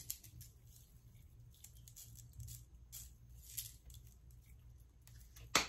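Coloured sugar sprinkles shaken from a small jar and pattering lightly onto a cake's chocolate topping, with a sharp click near the end.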